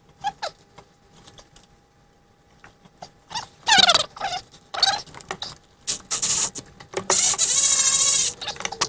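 Engine-bay parts squeaking and scraping as hands work a bracket loose, with scattered light clicks at first. The squeaks come in short bursts from a few seconds in, and the longest, loudest squeal comes near the end.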